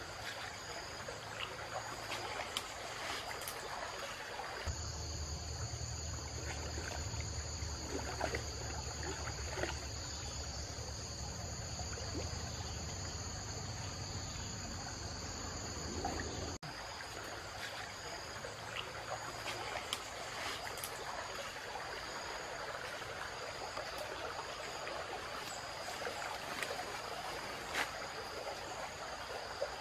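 A steady, high-pitched chorus of insects over trickling and sloshing river water, with scattered small splashes and knocks as a person wades through shallow muddy water. About 5 seconds in the sound changes abruptly and a low rumble joins it, then drops away just as suddenly about 17 seconds in.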